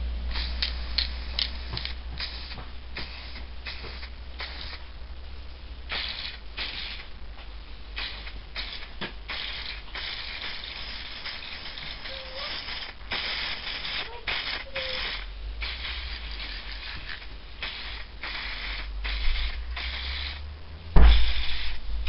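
Aerosol can of surface primer spraying in many short hissing bursts, with a few longer sprays in the middle. A loud knock near the end.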